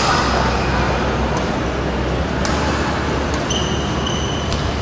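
Badminton rally: sharp racket-on-shuttlecock hits about a second apart, and a short high shoe squeak on the court mat late on, over steady hall noise.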